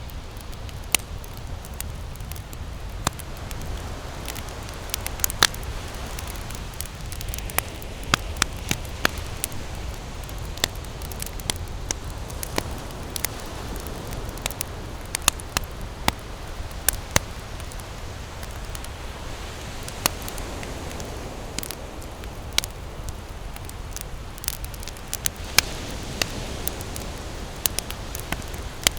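Wood fire burning with irregular sharp crackles and pops over a steady low rumble of the flames.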